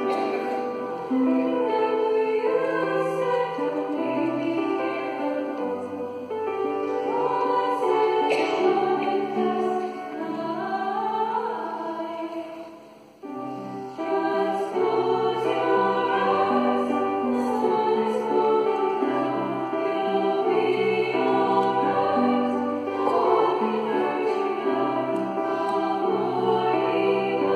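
Women's choir singing a slow song in several-part harmony, with a short break about halfway through before the voices come back in.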